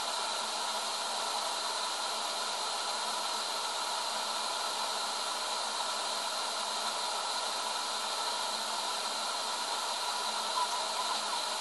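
Steady, even hiss of room tone with a few faint steady tones, unchanging throughout, with one small blip near the end.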